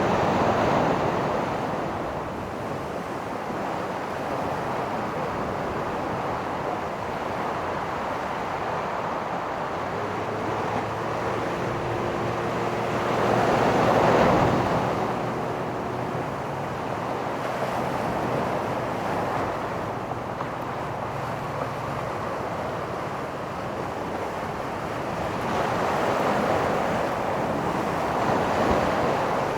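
Ocean surf washing onto a beach, the rush swelling loudest three times: at the start, in the middle and near the end. A faint low steady hum, like a distant engine, runs under it from about a third of the way in to about three quarters.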